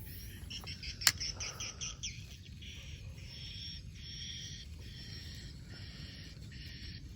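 Birds chirping in repeated short calls, with a quick run of chirps early on giving way to longer calls, over a low steady rumble. One sharp click about a second in.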